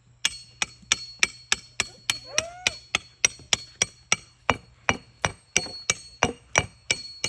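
A hammer striking half-inch steel rebar, driving it down through a concrete landscape block to pin the bed's boards. The blows come at about three a second, each with a metallic ring.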